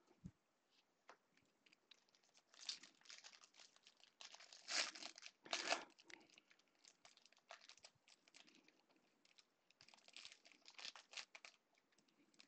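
Foil trading-card pack wrappers crinkling and tearing open, in two spells of crackly rustling, the louder one about five seconds in and a second near ten seconds in.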